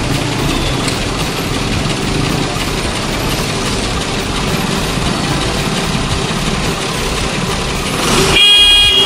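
Motorcycle traffic through a flooded road: engines running under a steady wash of noise. A vehicle horn honks about eight seconds in and is the loudest sound.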